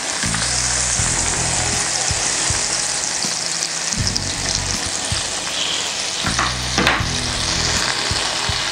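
A pat of butter sizzling and foaming as it melts in hot oil in a frying pan, pushed around with a wooden spatula. A steady frying hiss, with a few brief scrapes and knocks of the spatula against the pan near the end.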